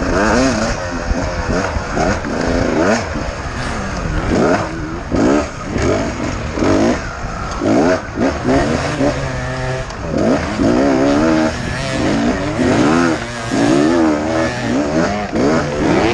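Beta 250RR Racing two-stroke enduro motorcycle engine, recorded from the bike itself, revving up and down again and again as the rider works the throttle over a rutted dirt track, with a briefly steadier pitch about nine seconds in.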